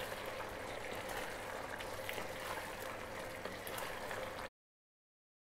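Thick sauce sizzling in a wok as a wooden spatula stirs chicken pieces through it, with a few faint scrapes of the spatula. The sound cuts off suddenly about four and a half seconds in.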